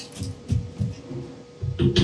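Soft knocks and rubbing as a cloth sanding belt is handled and slid onto the drums of a 6x48 belt sander, with a short ringing knock near the end, over background music.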